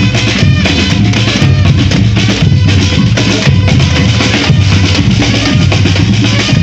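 Street percussion band drumming together: bass drums and snare drums in a steady, fast rhythm.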